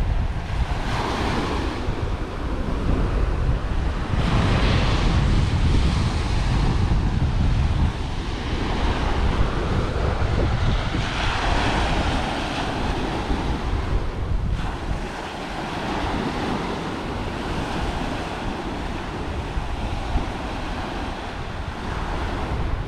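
Small ocean waves breaking and washing up a sandy shore, the surf swelling every few seconds. Wind buffets the microphone with a low rumble, heaviest in the first half.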